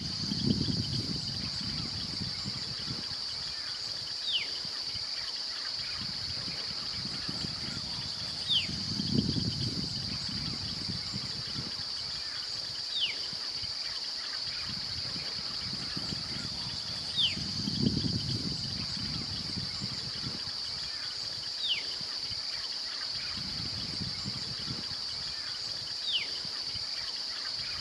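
A steady high-pitched insect chorus, with a bird giving a short falling whistle six times, about every four seconds. A low rumble swells and fades four times underneath.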